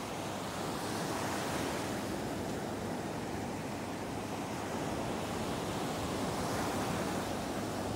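Ocean surf breaking and washing up a sandy beach: a steady rush of water noise that swells and eases with the waves.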